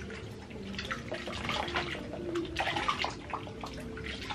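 Bath water splashing and sloshing in irregular bursts as a baby's back is scrubbed and washed by hand.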